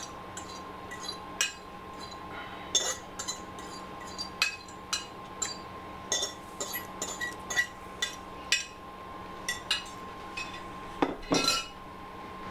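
A spoon knocking and clinking against a cooking pot as rice is stirred in, in irregular strokes about once or twice a second with a quick flurry near the end, over a steady faint hum.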